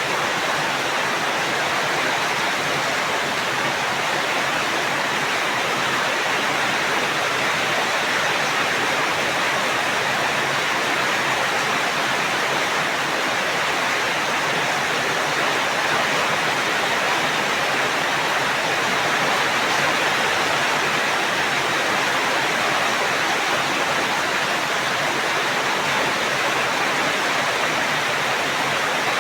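Steady rain falling, an even unbroken hiss with no thunder.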